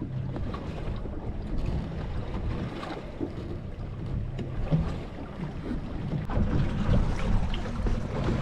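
Steady low rumble of a fishing boat at sea, with scattered light knocks and clicks and some wind on the microphone; it grows a little louder over the last couple of seconds.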